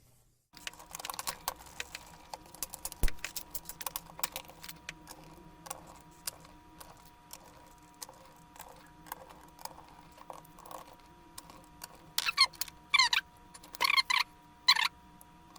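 Many light clicks and taps of plastic and small metal parts as a laptop's plastic back cover is fitted. Near the end there are four short buzzing bursts.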